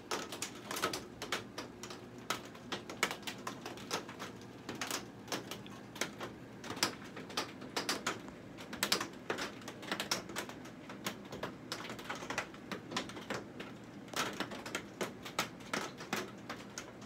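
Rain hitting a greenhouse, heard as dense, irregular popping clicks, with a faint steady hum underneath.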